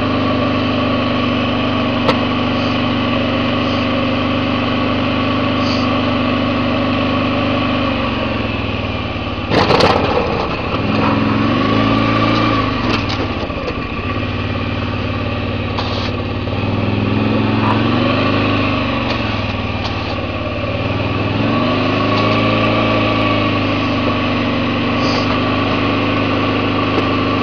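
ATV engine running steadily at low road speed, its pitch rising and falling three times as the throttle is worked. A brief loud thump comes just before the first swell.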